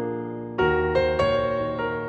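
Background music: a gentle piano melody, a new note struck every half second or so.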